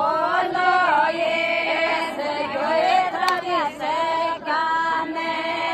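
A group of women singing a Shekhawati folk song together, the melody gliding and holding long notes.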